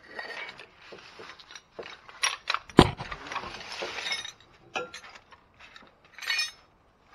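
Metal hand tools clinking and knocking against an exhaust pipe, a run of sharp taps with one hard strike about three seconds in and a short rattle after it, as a part stuck in the pipe is worked at.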